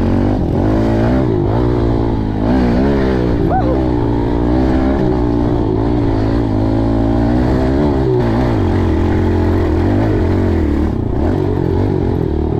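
Kawasaki 110 dirt bike's engine running under the rider, its pitch rising and falling again and again with the throttle, then running steadier after about eight seconds.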